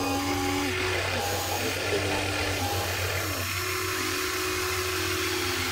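Small electric motors of radio-controlled Huina toy excavators whining as the booms, arms and buckets move, the pitch sliding up and down and shifting every second or so, over a steady low hum.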